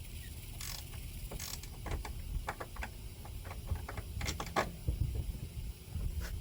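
Hand ratchet wrench clicking in short runs as strut bolts are tightened, with a few louder metallic clicks near the end.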